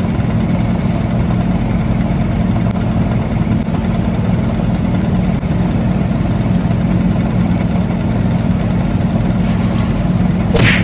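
Steady low machine hum, even in level throughout, with one sharp click near the end.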